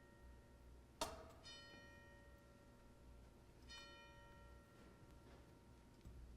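Soft music: the same ringing note sounds twice, about one and a half seconds in and again near four seconds, each fading slowly. A sharp click comes about a second in.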